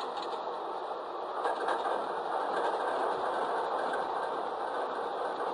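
An N scale Broadway Limited Alco PA model locomotive's DCC sound decoder playing its diesel engine sound through the tiny onboard speaker. It is a steady, thin engine sound with little bass, growing a little louder about a second and a half in.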